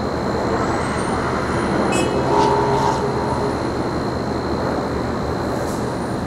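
Steady rumble of Manhattan street traffic, with a sharp click about two seconds in.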